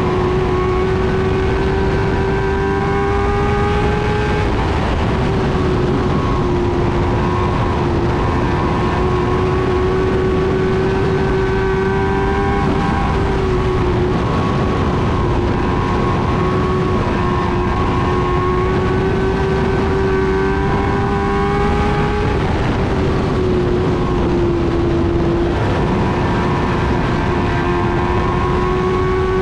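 Race car engine at racing speed, heard from inside the cockpit. Its pitch climbs steadily and then dips briefly about every nine seconds as the driver lifts for the turns on the oval, three times.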